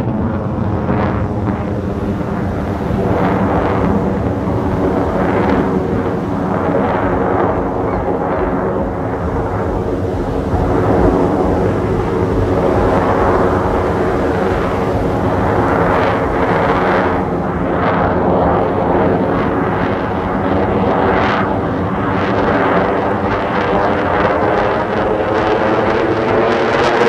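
Fighter jet engine noise from an air show demonstration: a loud, steady jet sound with a sweeping, phasing tone as the jet moves across the sky.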